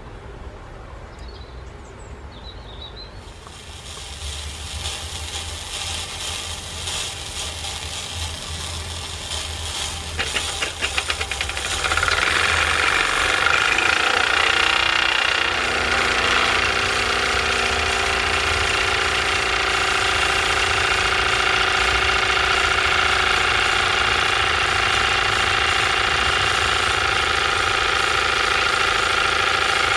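Mamod SE2a toy steam engine with its oscillating cylinder running, freshly oiled: the rapid mechanical chuff builds over the first seconds and about ten to twelve seconds in it picks up into a fast, steady run with a hiss of steam and a high whine.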